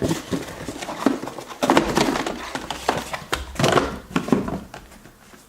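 Package being opened by hand: irregular rustling, scraping and knocking of cardboard and packaging, with a few louder bursts.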